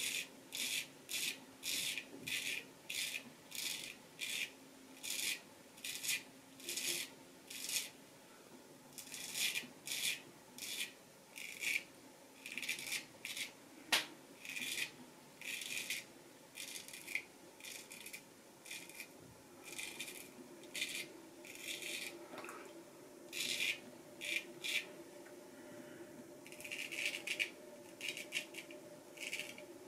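Vintage Kaeser's No. 402 straight razor from Nashville Barber Supply scraping through lather and stubble in short strokes, about one or two a second, each a brief crisp rasp. The blade is well honed and shaves without any trouble.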